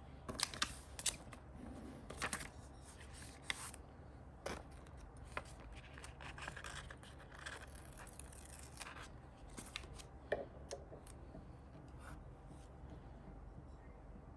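Scissors snipping paper for a planner spread: a run of sharp snips and clicks in the first few seconds and again later, with soft paper rustling between them.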